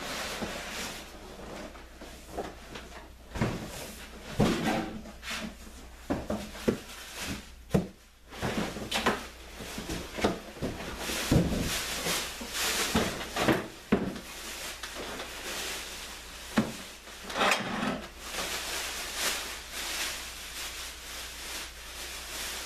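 Unpacking a heavy benchtop planer: cardboard and styrofoam packing scraping and knocking, a series of thumps as the machine is lifted and set down on the wooden stand, and a plastic bag rustling as it is pulled off near the end.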